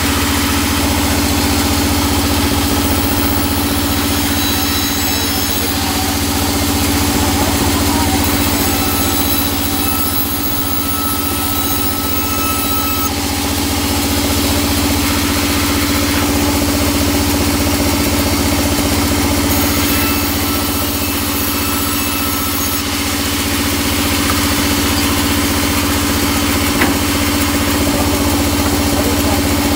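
Band sawmill running steadily, its drive humming without a break, while the band saw blade rips teak boards; the sharper cutting noise is stronger for the first dozen seconds and again for a few seconds a little past the middle. The teak is very hard and the blade feels blunt in it.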